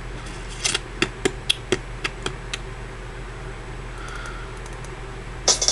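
Typing on a computer keyboard: about eight sharp key clicks over a couple of seconds, then a few fainter ones. A song with drums starts playing just before the end.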